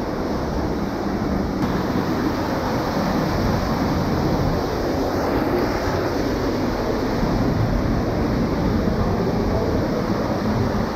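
Steady rushing noise of flowing water in a cave stream, even and unbroken.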